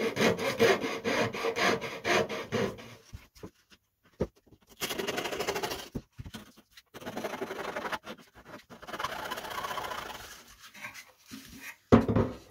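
Small hand saw rasping through balsa wood in quick short strokes, in several spells, as a glued-in former is cut away from a model aircraft fuselage. A single sharp knock comes near the end.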